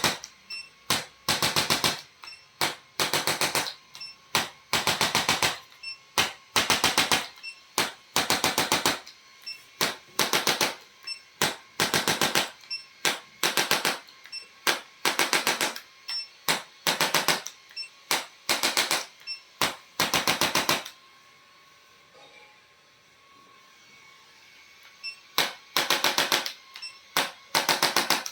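A rapid mechanical rattle of fast ticks in short bursts, each a fraction of a second to about a second long, repeating about once or twice a second. It pauses for about four seconds near the end, then resumes.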